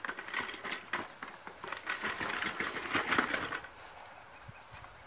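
Footsteps crunching through dry fallen leaves and grass, a quick run of close crackling steps and rustling that stops about three and a half seconds in.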